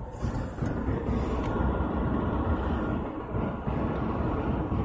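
A small car being driven, heard from inside the cabin: a steady, low rumble of tyres and engine.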